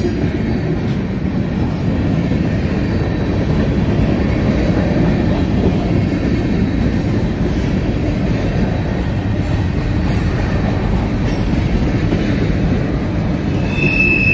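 CSX mixed freight train cars rolling past close by: a steady rumble of steel wheels on the rails, with a brief high wheel squeal near the end.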